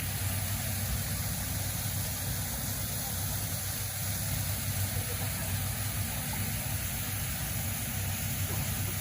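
Waterfall rushing, a steady unbroken roar of falling water with a deep low rumble.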